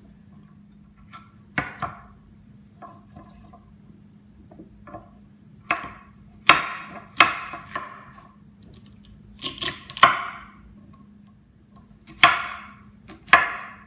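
Vegetables being chopped with a knife on a cutting board: irregular, separate knife strikes, the loudest ones from about the middle on. A faint steady hum lies underneath.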